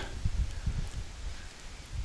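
Wind buffeting the microphone outdoors: an uneven low rumble, with faint rustling.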